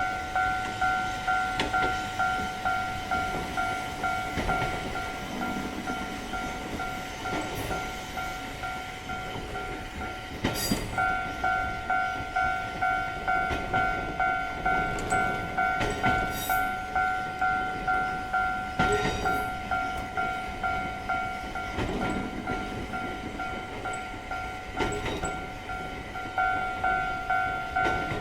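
Japanese railroad crossing warning bell ringing its "kan-kan" about twice a second, with a train running through the crossing. The bell stops briefly about ten seconds in and starts again.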